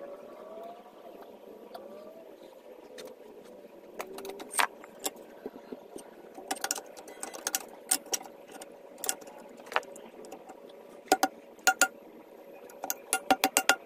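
Irregular sharp metallic clinks and taps, some with a brief ring, coming in clusters, over a steady low hum; a couple of short rising squeaks in the first two seconds.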